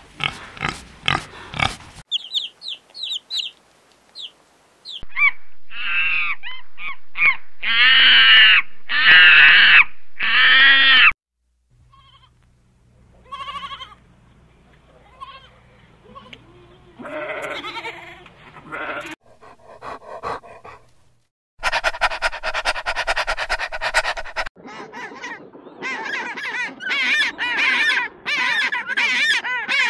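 A string of different animal calls, changing every few seconds: short pig grunts at the start, goats bleating around the middle, and a run of rapid repeated calls near the end.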